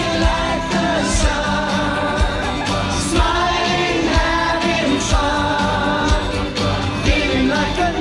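Live pop concert: a male vocal group singing over a full band with drums.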